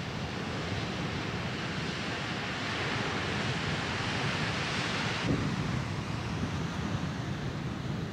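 Ocean surf washing on a sand beach, mixed with wind buffeting the microphone. The hiss swells and then drops off suddenly about five seconds in, with a low thump.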